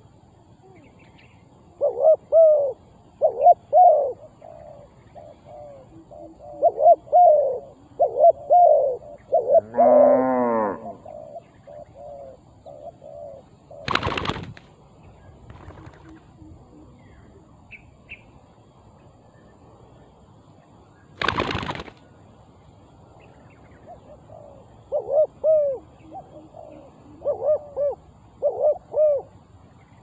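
Spotted dove cooing in short phrases of repeated coos, a run in the first ten seconds and another in the last five, with a louder, lower drawn-out call about ten seconds in. Two sharp cracks cut in, about seven seconds apart.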